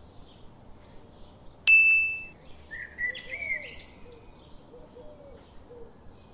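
A single bright ding about a second and a half in, ringing out for about half a second, followed by a few bird chirps over a faint birdsong background.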